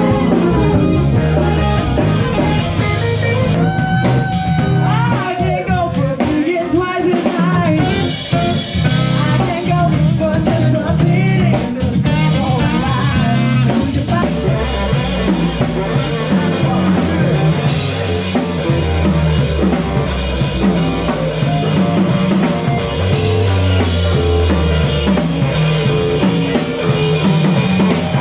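Live rock band playing a song: a drum kit keeping a steady beat under guitar, with singing that is strongest in the first half.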